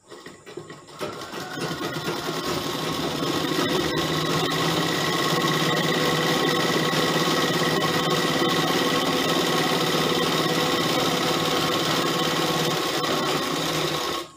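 Sewing machine stitching a long seam, speeding up over the first couple of seconds, then running steadily at full speed before stopping abruptly at the end.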